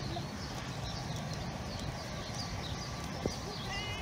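Outdoor ambience: a steady low rumble of wind on the microphone, with small birds chirping repeatedly, about three or four chirps a second, and a short higher call near the end.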